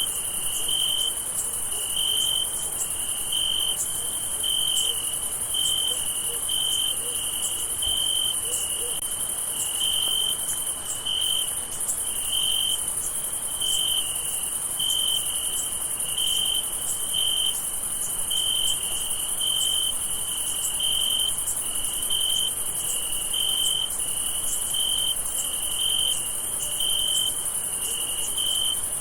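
Night chorus of crickets: one cricket's regular chirps, a little faster than one a second, over a continuous high-pitched insect trill.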